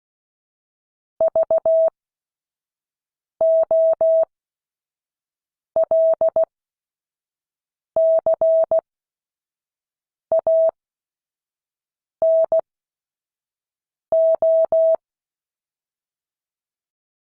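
Morse code sent as a single steady beeping tone of about 650 Hz, keyed in dots and dashes. Seven characters come one at a time, with about two seconds of silence between them: slow, widely spaced sending for copying practice.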